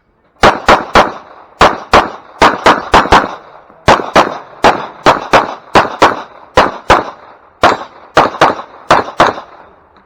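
Glock pistol fired rapidly through a competition stage: about two dozen sharp shots in quick pairs and short runs, with brief pauses between groups while the shooter moves between targets.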